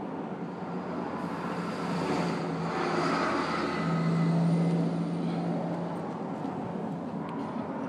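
A motor vehicle drives past, its engine hum swelling to a peak about four seconds in and then fading.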